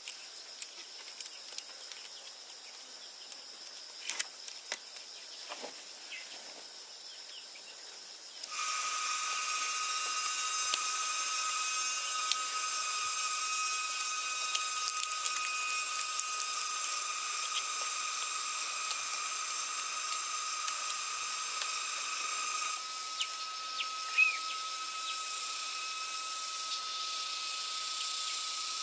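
A steady, high-pitched insect drone sets in suddenly about a third of the way through, over scattered light clicks and taps. Near the end a short bird chirp sounds once.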